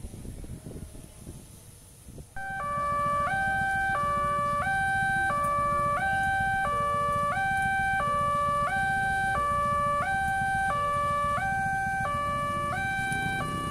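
Electronic warning alarm of an Indonesian railway level crossing, starting about two seconds in and sounding a steady two-tone call that alternates between a higher and a lower pitch about every 0.7 seconds. A low rumble runs underneath it.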